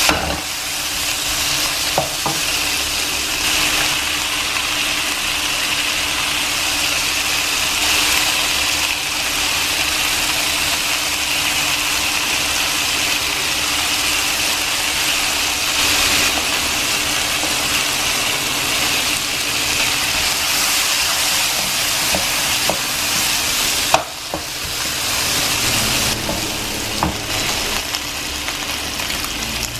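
Chicken wings and onions sizzling as they fry in oil in a nonstick wok, with a wooden spatula stirring them and a few sharp knocks against the pan.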